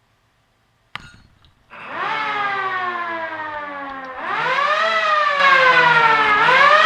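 R&S Co. Model-64 siren switched on with a click and run in wail: its tone rises, sags slowly, then dips and climbs again twice, getting louder.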